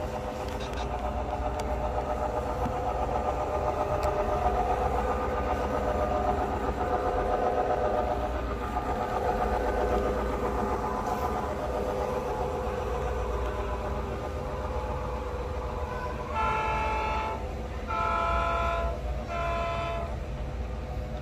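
Model diesel locomotive's onboard sound running a diesel engine sound, then three horn blasts about a second long each near the end.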